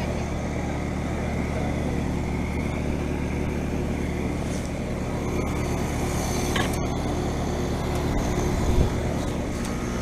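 Outdoor heat pump / air-conditioner units running close by: a steady hum of compressor and condenser fan with constant low droning tones. A brief low bump comes shortly before the end.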